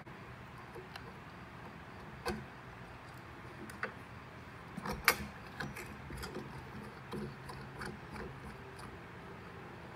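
Scattered light clicks and knocks of small metal parts and hand tools being handled on a perforated steel table, the sharpest knock about five seconds in.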